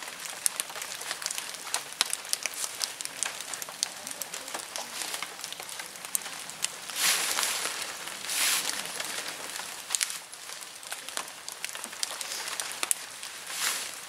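Nylon tent fabric rustling and swishing as it is pulled into shape, with dry fallen leaves crackling underfoot. Many short crackles throughout, and three louder swishes, about halfway through, just after, and near the end.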